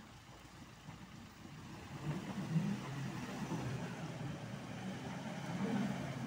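Car engine running under load, picking up and revving about two seconds in as the car strains to climb out of a deep rut on a muddy dirt track, with a second swell near the end.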